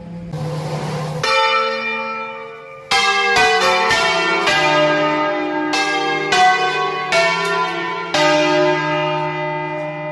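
Church bells ringing close up in the belfry: about ten strikes in an uneven sequence, each ringing on so the tones overlap. A brief hiss comes before the first strike.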